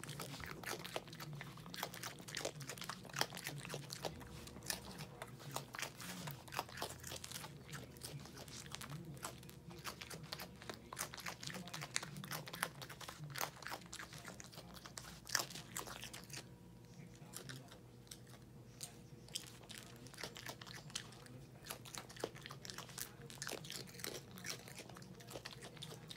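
Albino raccoon chomping dry Cheerios: a steady run of sharp little crunches as it bites and chews the cereal, fewer for a few seconds past the middle.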